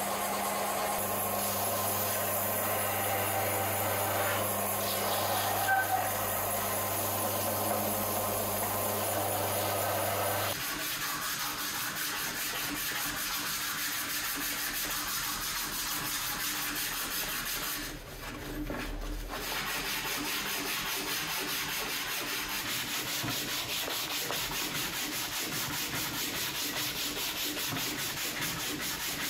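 Sandpaper rubbed by hand along a wooden pickaxe handle in quick back-and-forth strokes, a dry, repeating rasp. In the first third a steady low hum sits under a rougher rubbing noise; the sanding pauses briefly a little past the middle.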